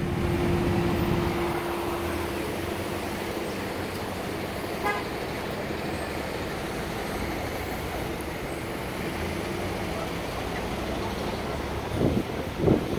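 Steady street traffic noise, with a single held tone over the first two seconds or so that fades out, and two short louder sounds near the end.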